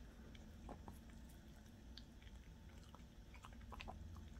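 Faint, scattered wet clicks of a Yorkshire terrier chewing and licking at a soft peeled peach held in a hand.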